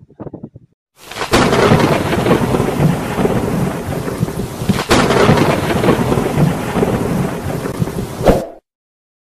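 Thunderstorm sound effect for a channel intro: loud thunder and rain noise that starts suddenly about a second in and cuts off abruptly near the end.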